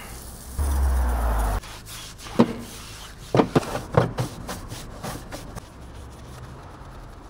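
Scrubbing a car's wheel, tyre and wheel arch with a wash mitt and a wheel brush: rasping rub strokes with a cluster of sharp knocks in the middle. A louder one-second rush of noise comes near the start.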